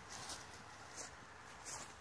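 Faint footsteps in dry fallen leaves: three soft rustling steps about two-thirds of a second apart.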